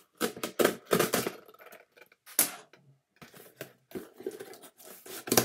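Cardboard shipping box being opened: packing tape is slit and torn and the flaps are handled, giving a quick, irregular run of scrapes, knocks and cardboard crackles.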